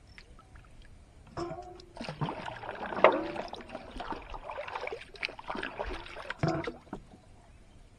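Water splashing and dripping against a wooden boat's side as a gill net is hauled up out of a lake, loudest about three seconds in. Near the end a plate of water is tipped back into the lake with a splash.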